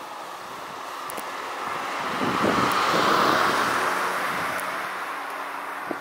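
Small white van driving past close by: its tyre and engine noise swells, peaks about halfway through, then fades away.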